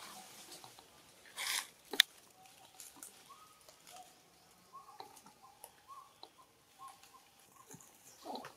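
Faint sounds of macaques on dry leaf litter. A brief rustle is followed about two seconds in by a single sharp snap, the loudest sound. Faint short high calls follow, and a short falling sound comes near the end.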